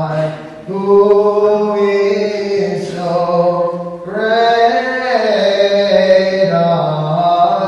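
Byzantine liturgical chant: a voice singing slow, drawn-out melismatic phrases on long held notes, the pitch rising and falling gradually. A short breath-pause comes just under a second in, and a new phrase swells around four seconds in.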